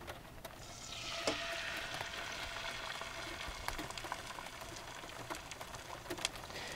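Beaten eggs poured into a very hot pan of butter and bacon grease, frying with a steady sizzle that builds about a second in as the egg hits the pan.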